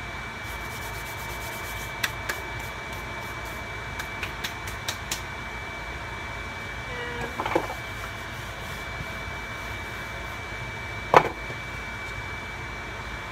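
Kitchen sounds of tortilla dough being worked by hand at the stove: a steady whir with a faint high whine underneath, scattered light clicks and taps, a short scrape about seven seconds in, and a sharp knock about eleven seconds in.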